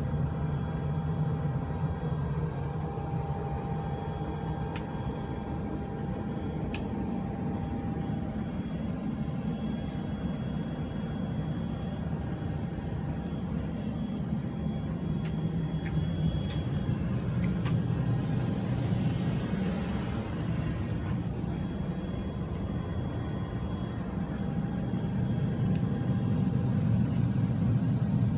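Jet aircraft's air conditioning running in high humidity: a steady rumble and whir with a few faint steady tones above it. There are two sharp clicks about five and seven seconds in, and the sound grows a little louder near the end.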